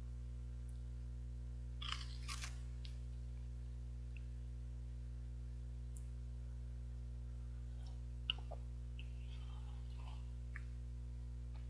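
Quiet crunching bites of a chocolate grain bar about two seconds in, over a steady low hum. A single sharp click a little past eight seconds, then faint sipping of hot coffee from a mug.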